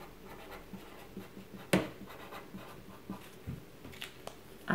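Felt-tip pen writing on paper: faint scratchy strokes, with a sharp click a little under two seconds in.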